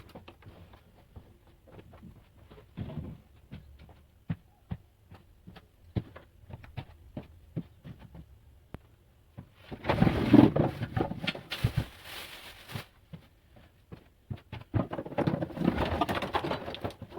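Scattered light knocks and clicks of things being handled and moved, with two louder stretches of rustling and scraping about ten and fifteen seconds in.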